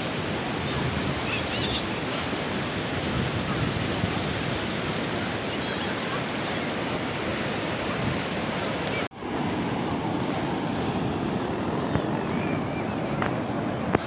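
Sea waves washing on a beach, a steady rushing noise mixed with wind on the microphone. About nine seconds in it drops out briefly and carries on with less hiss.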